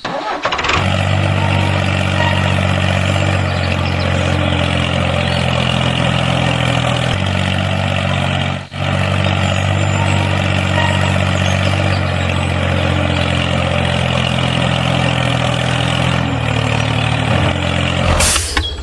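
Tractor engine running steadily at idle, cutting out for an instant about halfway through, then carrying on.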